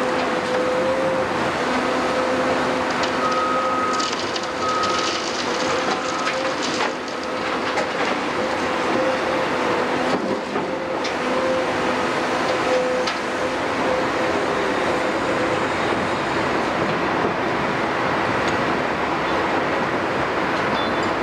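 Cat 390F large crawler excavator working, its Cat C18 diesel engine running steadily under load with a steady hydraulic whine over it. Scattered clanks and rattles of rubble come about four to seven seconds in.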